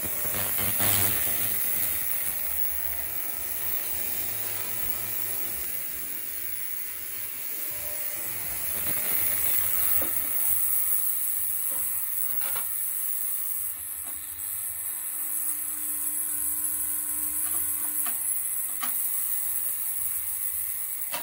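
Ultrasonic parts cleaner running with a steady, high-pitched hiss as it cleans small car parts in its tank. A few short knocks come from its metal lid being handled.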